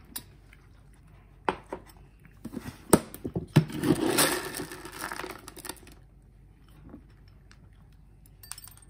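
A few sharp clicks and knocks as the lid of a plastic storage bin is handled, then about two seconds of dry dog kibble rattling and rustling as a hand scoops it out of the bin.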